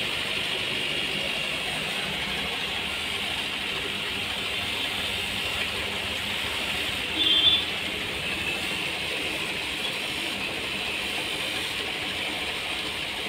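Steady hiss and bubbling of aquarium aeration, from air-driven sponge filters in the tanks, with a brief, louder high-pitched sound about seven seconds in.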